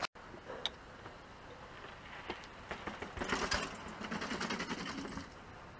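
Mountain bike clattering and ticking: a run of rapid clicks and rattles from about three seconds in until a little past five seconds.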